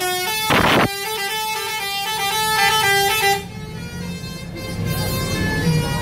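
A Basuri musical telolet horn on a coach plays a quick melody of short stepped notes, then stops about three seconds in. A brief loud hiss comes about half a second in.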